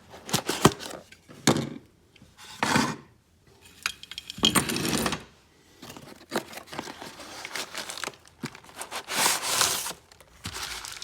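Packaging being torn open and crinkled by hand in a series of irregular rustling bursts, with a few sharp clicks.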